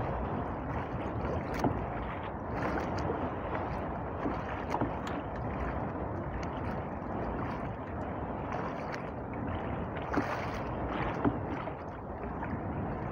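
Steady wash of wind and sea water against a small boat's hull on choppy open sea, with a few light knocks and ticks scattered through it.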